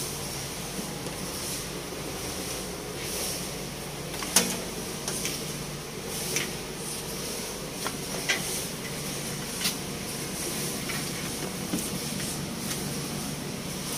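A steady low hum with hiss, broken by a few short sharp clicks and knocks, the loudest about four seconds in.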